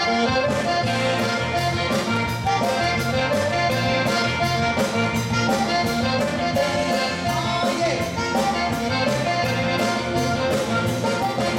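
Live zydeco band playing, the accordion leading over a drum kit with a steady beat, electric guitar and bass guitar.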